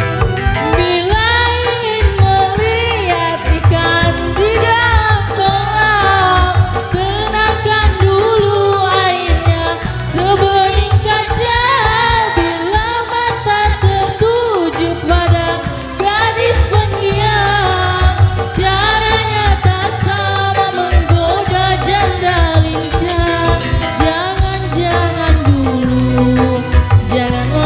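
Dangdut koplo band playing live, with a winding, ornamented sung melody over a driving drum and bass beat.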